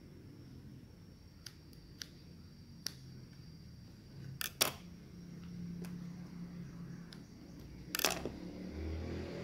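Scattered clicks and taps from a black domestic sewing machine and its table as fabric is handled and positioned under the presser foot. The loudest is a sharp double click about four and a half seconds in, with another cluster about eight seconds in and a faint low hum in between.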